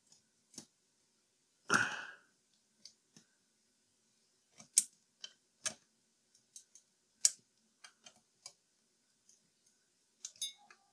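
Small metal clicks and ticks of a hand tool working a screw and nut into a can mounted on a tube-radio chassis, irregularly spaced, with a brief rustling scrape about two seconds in. The fastener is being tightened gently, since the nuts are riveted into the can.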